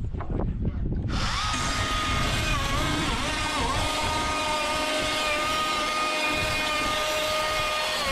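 Wind buffeting the microphone, then about a second in a power drill starts and runs continuously with a steady whine that dips briefly in pitch a few times.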